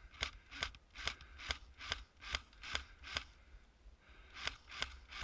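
Airsoft rifle fired in quick semi-automatic shots, a sharp click about every 0.4 seconds: a string of eight, a pause of about a second, then three more.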